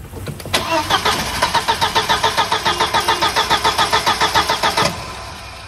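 1999 VW Passat 1.8T's starter cranking the 1.8-litre turbo four-cylinder for about four seconds, in a fast even rhythm, then stopping without the engine catching. It is a crank-no-start: re-soldering the faulty relay has not cured it, and the relay needs replacing.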